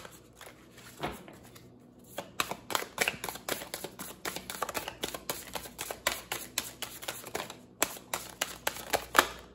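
Tarot cards being shuffled by hand: a few scattered card sounds, then from about two seconds in a quick, steady run of card slaps that stops just before the end.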